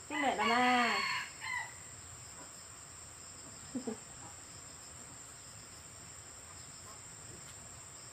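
A rooster crows once, about a second long, right at the start, then gives a shorter call and a faint one about four seconds in. A steady high insect trill from crickets runs underneath throughout.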